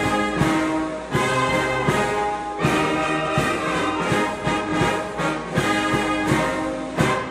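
Brass band playing a ceremonial piece, with regular drum beats under the brass; it stops abruptly shortly before the end.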